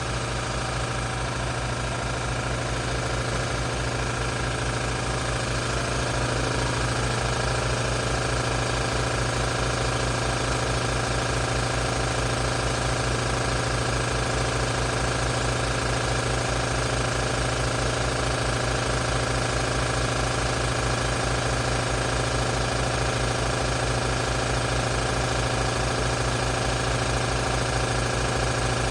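Piston air compressor running steadily with a fast, even pulse and a strong low hum, building up tank pressure before it shuts off.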